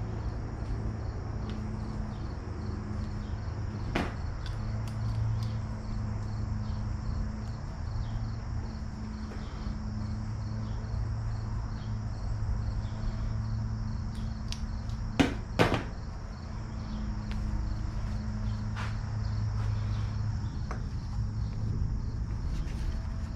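Hand tools and hose fittings clicking and clinking now and then as a new fuel line is fitted to a commercial mower, with a sharp double click about fifteen seconds in, over a steady low hum.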